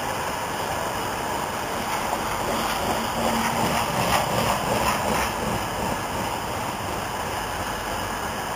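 Steady rush and rumble of a First Great Western HST's coaches passing on the nearby line, wheels running on the rails, swelling slightly about three to five seconds in.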